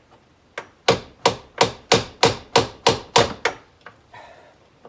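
A hammer striking a steel car-door hinge pin about ten times in quick succession, about three blows a second, working the pin into the hinge. There are lighter taps before and after the run of blows.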